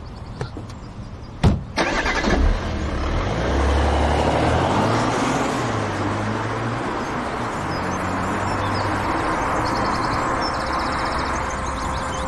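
A single sharp thump, then a car engine starting up and running steadily under road noise, its low pitch shifting as it pulls away.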